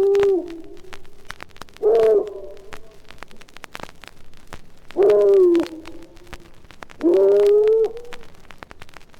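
A large dog baying: short, deep, hollow howls repeated every two to three seconds, three full calls after the tail of one at the very start.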